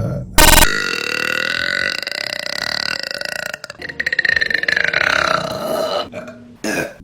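Women burping: a long drawn-out belch of about three seconds, then a second of about two seconds that falls in pitch near its end, and a short one near the end. A short loud burst of noise comes about half a second in.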